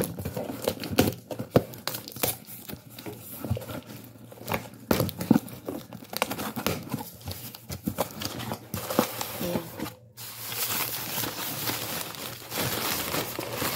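A cardboard box being torn open, with irregular sharp rips and knocks, then from about ten and a half seconds in a continuous crinkling of newspaper packing being pulled apart by hand.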